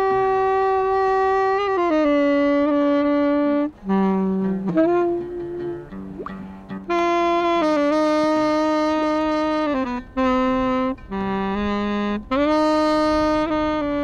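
Tenor saxophone playing a slow melody of long held notes, with a few short breaks between phrases.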